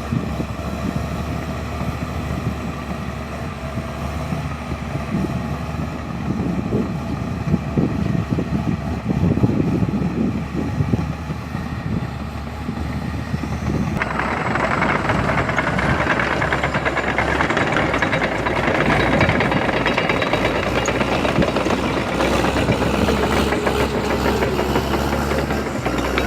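A heavy vehicle's engine running steadily with a low hum. About halfway through, the sound changes abruptly to a louder, rougher rumble.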